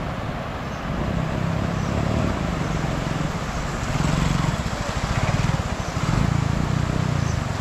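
A motor vehicle engine running, swelling louder a few times, over a steady rushing noise.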